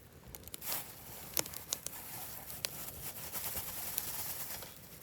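Wood campfire crackling, with a handful of sharp, irregular pops over a faint hiss.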